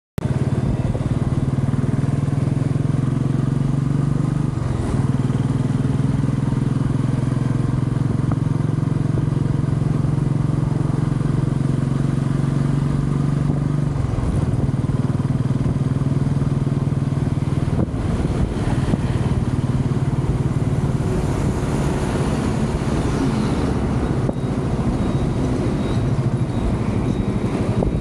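Royal Enfield Classic 350's single-cylinder engine running at a steady cruise, its note dipping briefly twice, around five and fourteen seconds in, under a constant rush of wind and road noise.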